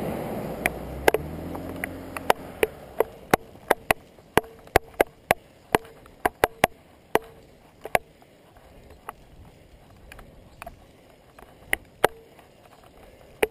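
A car passing close by, its tyre and engine noise fading away over the first two seconds with a falling pitch. A string of sharp clicks follows, closely spaced at first and sparser toward the end.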